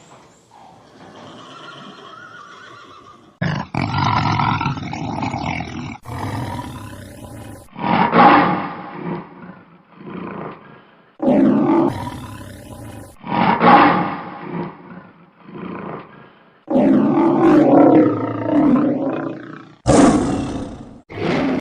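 Lion roaring: a series of long, deep roars separated by short pauses.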